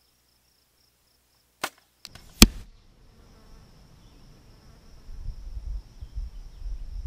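A compound bow shot: a sharp click of the string release about one and a half seconds in, then, just under a second later, a much louder smack as the arrow with a four-blade broadhead strikes a beef shoulder blade. Insects chirp before the shot and buzz steadily after it, with a low rumbling noise toward the end.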